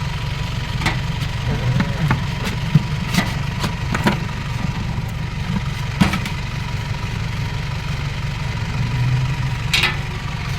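A steady low engine-like hum, with a handful of short sharp knocks and clicks scattered through it.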